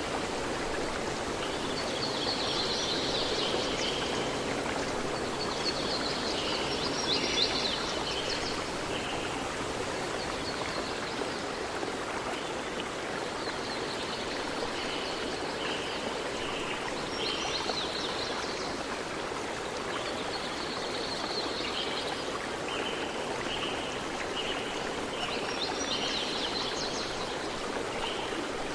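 Stream water running steadily, with clusters of high chirping calls recurring every few seconds over the flow.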